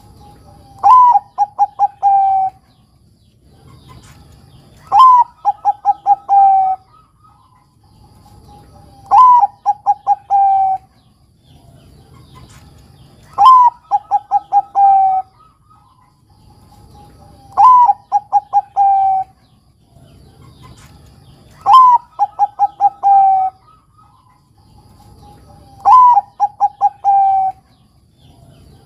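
Zebra dove (perkutut), Bangkok type, cooing its song seven times at an even pace of about one phrase every four seconds. Each phrase opens with a soft low coo, then a rising and falling note, a quick run of four or five clipped notes, and a longer falling note to close.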